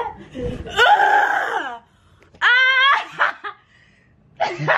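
A woman's voice shrieking and crying out, with laughter: a long wavering cry about a second in, then a higher, sharper shriek about two and a half seconds in.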